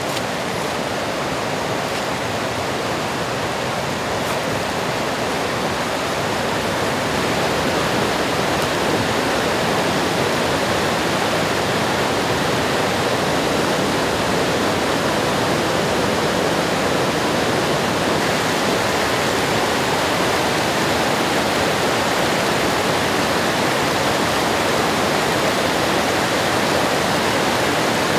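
River rapids rushing over rocks in a steady, dense wash of water noise, growing a little louder about seven seconds in.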